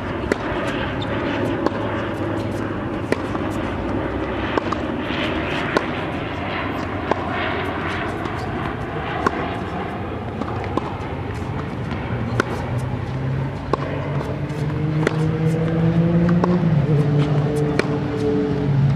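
Tennis balls struck by rackets in a baseline rally: sharp pops about every second and a half over a steady low background rumble. Music with stepping notes fades in over the last third and grows louder.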